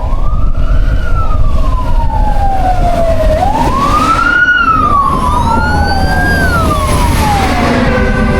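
Strong wind buffeting the microphone as a heavy low rumble, with a howling whistle that slides up and down in pitch several times, the glides overlapping.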